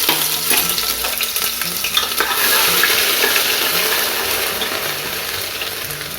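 Chopped ginger, green chilli and garlic sizzling in hot ghee in a pressure cooker, with a spoon stirring and scraping through it. The sizzle eases slightly toward the end.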